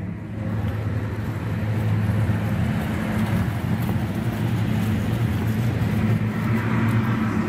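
Rooftop HVAC units running: a steady low hum under an even rush of moving air from their fans.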